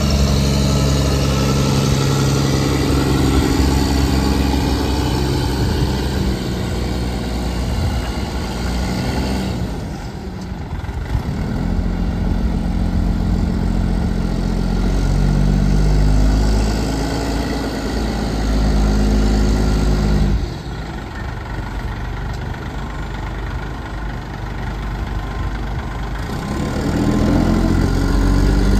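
2006 Mack CV713 Granite rear-load garbage truck's diesel engine running, its speed stepping up and down. It drops quieter briefly about ten seconds in, and again for several seconds past the two-thirds mark.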